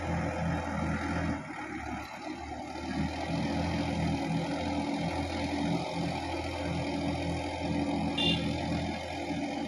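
Diesel engine of a Sonalika DI-50 RX tractor running steadily under load while it cultivates a muddy paddy field, with a brief dip in level about two seconds in.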